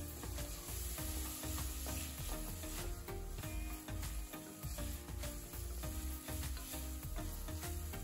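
Wooden spatula stirring and scraping chickpea masala around an aluminium pressure cooker in quick repeated strokes, with the masala sizzling in the oil.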